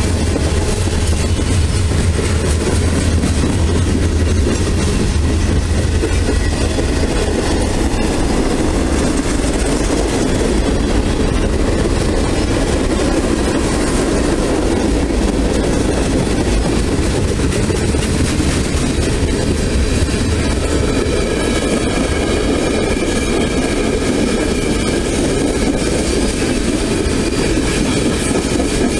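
A freight train of covered hoppers and tank cars rolls past, with steel wheels running on the rails in a loud, steady rumble. A faint high ringing joins in during the second half.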